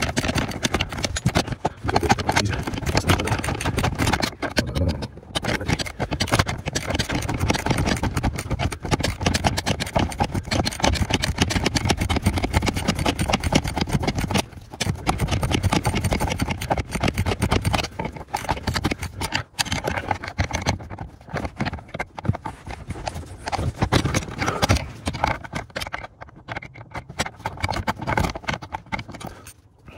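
Hand work on a BMW E60's clutch pedal assembly: a dense run of irregular clicks, knocks and rattles of tools and parts, with a couple of brief pauses.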